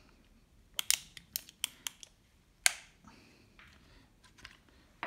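Muzzle-loading revolver's metal parts clicking as it is handled to take its cylinder out. There is a quick run of about six sharp clicks, one louder click a little later, then a few faint ticks.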